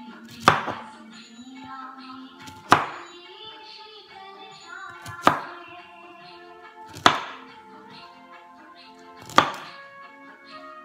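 Chef's knife chopping broccoli on a wooden cutting board: five sharp chops about two seconds apart, over background music with sustained tones.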